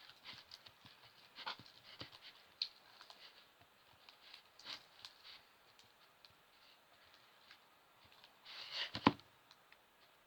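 Slime mixture being stirred in a container: faint, irregular scraping and small clicks, with a louder scrape ending in a sharp knock about nine seconds in.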